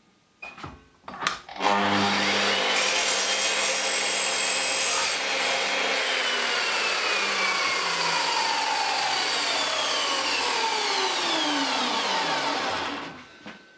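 A couple of clicks, then a miter saw with a 60-tooth Hans & Baumier blade starts about two seconds in and runs loudly while cutting through copper pipe. The motor is then released and the blade winds down with a long falling whine that fades out shortly before the end, followed by a single click.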